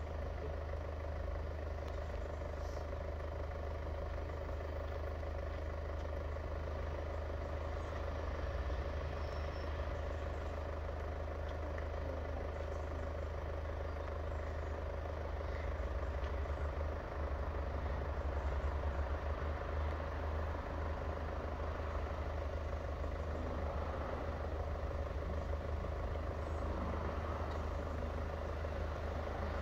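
A vehicle engine idling steadily as a low rumble, with a faint steady hum above it, swelling slightly about halfway through.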